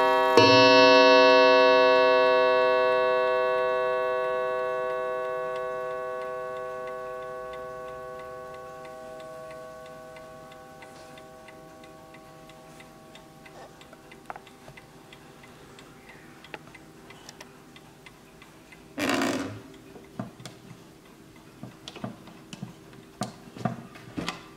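The coiled wire gong of a 1920 German B W L mantel clock struck once by its hammer, ringing with a rich tone that fades away over about ten seconds, with the movement ticking under it. About two-thirds through comes a brief brushing noise, then several light knocks as the wooden case is handled.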